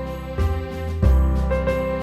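Instrumental Christmas background music, a slow melody over sustained chords with new bass notes coming in about half a second and a second in.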